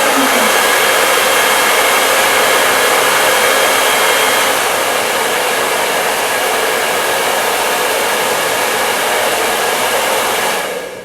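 Hair dryer blowing steadily on braided hair to heat-set the crimp, switched off near the end.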